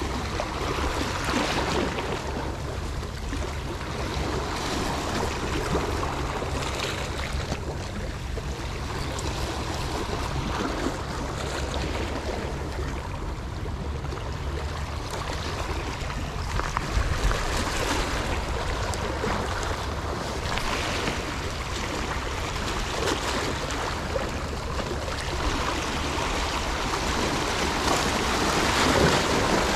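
Steady wash of sea water with a low rumble underneath, rising and falling a little but never stopping.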